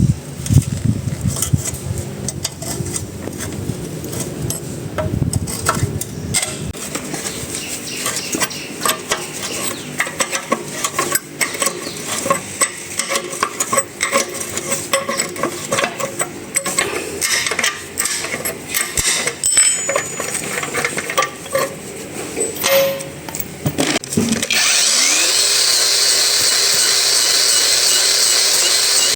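Busy clattering and scraping of tool work, with many irregular sharp clicks. About 24 seconds in, a steady loud hiss of spray starts and holds.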